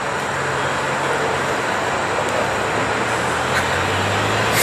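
Red Ford Mustang Shelby GT500's supercharged V8 running at low revs as the car rolls slowly forward: a low, steady rumble that grows gradually louder.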